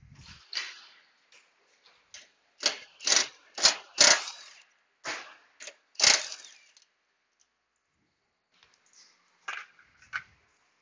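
Hand tools and engine parts clicking and knocking as they are handled: a string of sharp clicks, most of them in the middle few seconds, then a pause and a few lighter clicks near the end.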